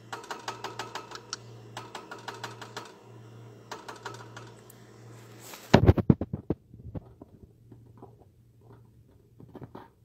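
Rapid runs of light clicks and taps about a wire birdcage, three bursts of about a second each with a faint metallic ring, then a cluster of louder knocks and rattles about six seconds in, thinning to scattered faint clicks.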